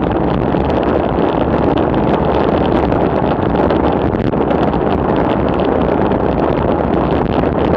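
Wind buffeting the microphone of a camera on a bicycle descending at about 55 km/h: a steady, loud rush.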